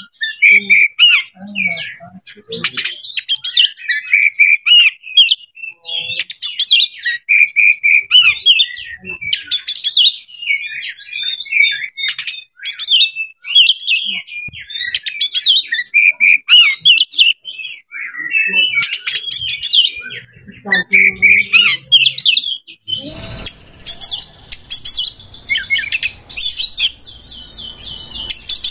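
Oriental magpie-robin singing a long, rapid, varied song of quick whistled and chattering phrases, delivering the mimicked 'isian' phrases that kacer keepers prize.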